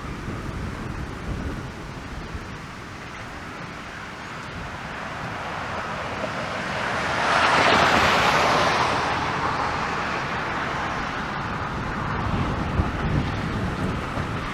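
Storm wind buffeting the microphone as a low rumble, with a hiss that swells to its loudest about halfway through and then slowly fades.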